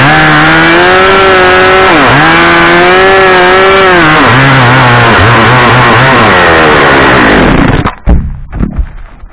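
Two-stroke chainsaw at full throttle cutting through a small white pine trunk, its pitch dipping and dropping as the chain bogs down in the wood. About eight seconds in the saw drops away and a heavy thud follows as the cut trunk falls.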